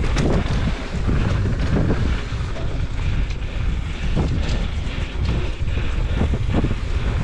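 Wind buffeting a mountain biker's camera microphone at speed down a dirt trail, a steady low rumble mixed with tyre noise and frequent short rattles and knocks from the bike over the bumps.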